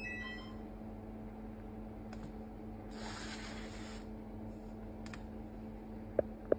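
A steady low hum under light handling noises: a few soft clicks and a brief hiss about three seconds in.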